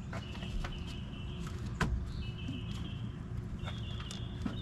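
Hand tools clicking and scraping on a corroded car battery terminal during cleaning, with a sharp tap a little under two seconds in and brief high squeaks now and then.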